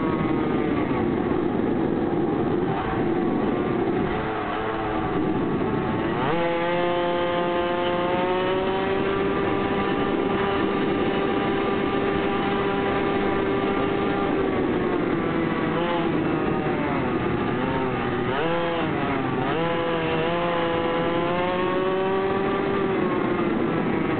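Small engine of a mini motorbike running under way, its pitch rising sharply about six seconds in and holding steady, then wavering up and down with the throttle before starting to drop at the very end.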